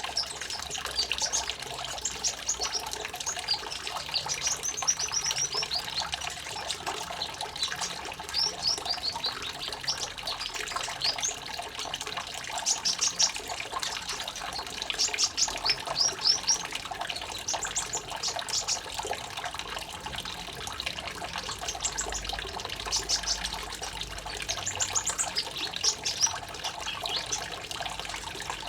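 Running water trickling steadily under a small songbird's high, rapid chirps and trills, the song of a kolibri ninja (purple-throated sunbird) played as therapy to coax a stressed or silent bird back into song.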